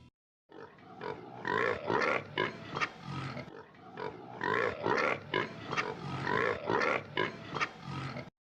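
Pig grunting and oinking in a run of short, repeated grunts that stops abruptly near the end.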